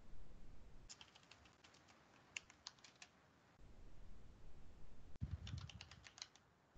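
Computer keyboard typing, faint: three short runs of quick keystroke clicks, about a second in, around two and a half seconds, and in the last second and a half, with a low dull knock under the last run.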